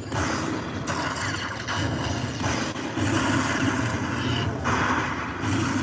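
Lightning Link Tiki Fire slot machine tallying its bonus coins: electric zap sound effects as lightning strikes each coin and the win meter counts up, coming one after another with short breaks.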